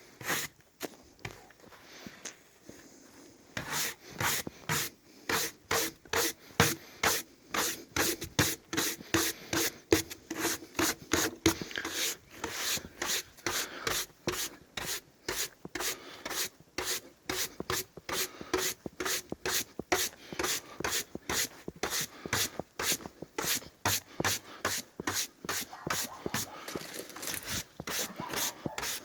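A brush scrubbing sawdust off a wooden board in quick repeated strokes, about two a second, starting a few seconds in.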